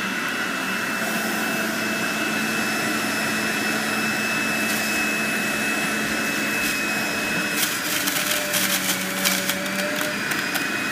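Breville BJE510XL centrifugal juicer running steadily at setting 5, its motor giving a high whine over a hum. From about two-thirds of the way in, a rapid crackling rattle for a couple of seconds as parsley is pressed down the feed chute onto the spinning cutting disc.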